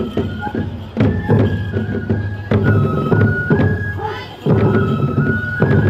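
Tiger-dance festival music: a Japanese bamboo flute plays a melody of held notes over steady taiko drum beats. The music dips briefly a little past the middle, then comes back in.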